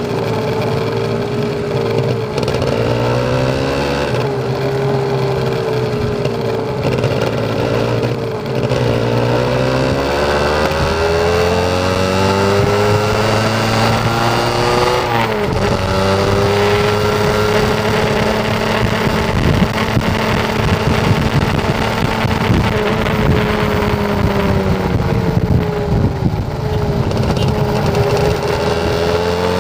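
Kawasaki Ninja 150RR two-stroke single-cylinder engine and exhaust, heard close up from beside the exhaust while riding. The engine pitch rises and falls repeatedly with throttle and gear changes, with a sharp drop about fifteen seconds in.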